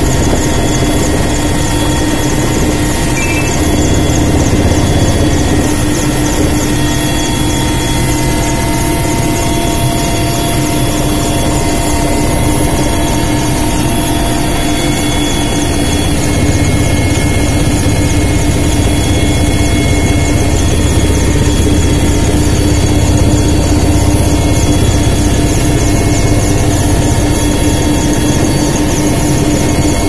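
Helicopter engine and rotor running steadily in flight, heard from inside the cabin.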